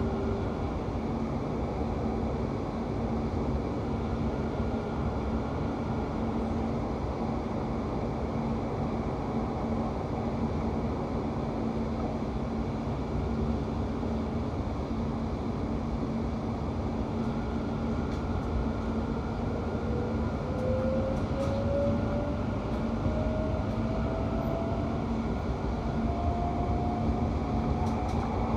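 Class 710 electric train running, with a steady rumble and a low hum. About two-thirds of the way through, a whine rises steadily in pitch, the traction motors as the train picks up speed.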